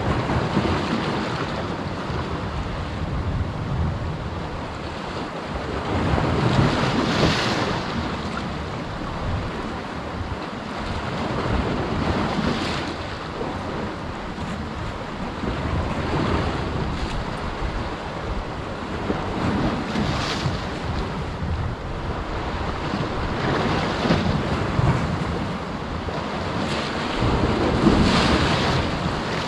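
Sea waves breaking and washing against a rocky shore, the surf swelling every four or five seconds, with wind buffeting the microphone.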